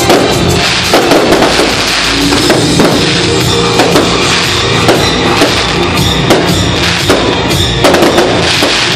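Fireworks display: aerial shells and ground fountains firing, with many bangs in quick succession and continuous crackling, over loud music with a steady beat.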